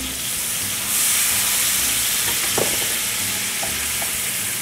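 Butter, bacon fat and spices sizzling in a hot stainless skillet as Worcestershire sauce is poured in. The hiss gets louder about a second in and then slowly eases, with a wooden spoon stirring the pan near the end.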